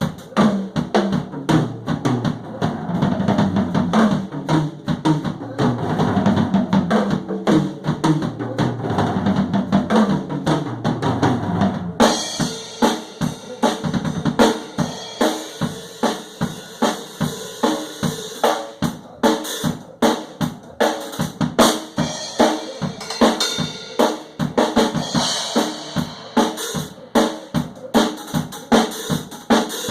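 Drum kit being played in a continuous rhythm. About twelve seconds in, the playing turns brighter and sharper, with cymbal hiss over the beat.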